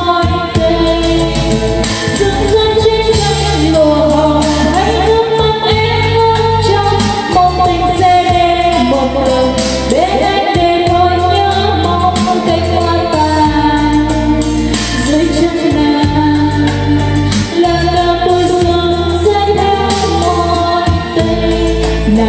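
A woman singing karaoke into a handheld microphone over a backing track, played loud through a trolley karaoke speaker with twin 40 cm bass drivers, with a strong steady bass line under the voice.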